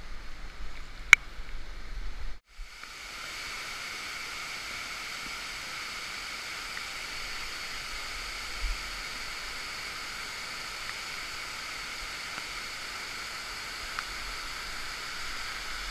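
Steady hiss of pouring rain and running stream water, muffled through a waterproof camera housing. A single sharp click about a second in.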